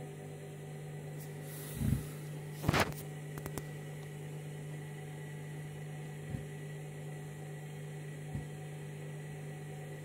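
Candy front-loading washing machine tumbling a foamy bleach wash: a steady motor hum with a few dull thuds from the drum, the loudest about three seconds in.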